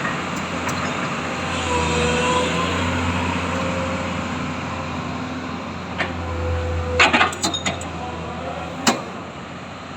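Komatsu PC200 excavator's diesel engine running with a steady hum and a faint whine that comes and goes. A cluster of sharp metallic knocks comes about seven seconds in, and a single one near the end.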